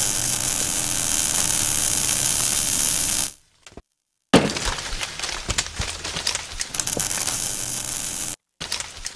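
Sound effects for an animated logo reveal. A loud crackling hiss cuts off about three seconds in. After a short silence comes a sudden hit, then a dense spray of crackles and clicks that cuts out again just before the end.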